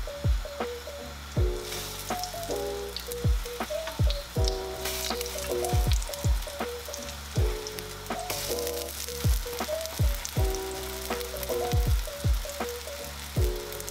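Pancake batter sizzling in hot oil in a cast-iron frying pan as a spatula turns the pancakes, with louder spells of sizzle about two, five and eight to ten seconds in. Lo-fi background music with a deep kick drum and soft keys plays over it.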